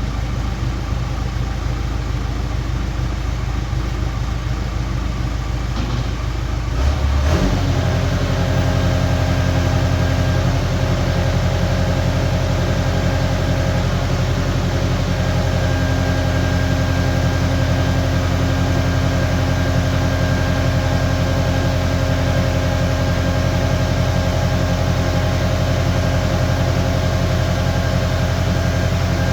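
Skid steer engine running steadily. About seven seconds in it is throttled up and holds at higher revs.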